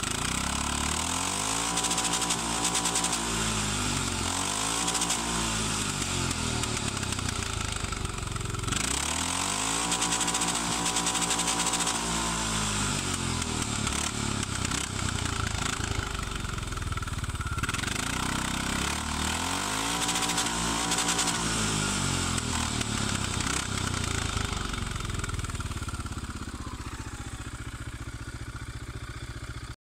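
Linhai 500cc four-stroke ATV engine running and revved up and down several times, with steadier running between the blips; one rev about nine seconds in is held for several seconds.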